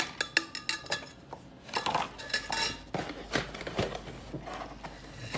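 Metal parts of a double-pole clothes rack clinking and clattering against each other as they are handled, with many sharp knocks, some leaving a short metallic ring.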